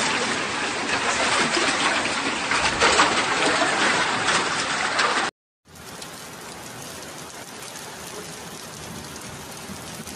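Heavy rain pouring down in a loud, steady hiss. About five seconds in it cuts off abruptly, and a quieter, even rush of rain and running floodwater takes over.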